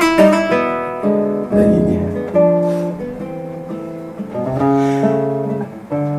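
Acoustic guitar played solo, slow plucked notes and chords, each ringing and fading before the next.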